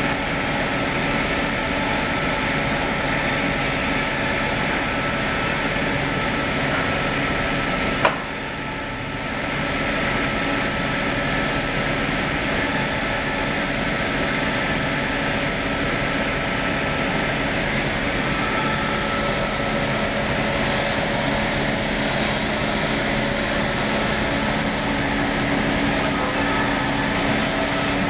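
Circular saw on a log-sawing machine running steadily while logs on a sliding carriage are fed past the blade. A single sharp click comes about eight seconds in, and the sound drops briefly in level just after it.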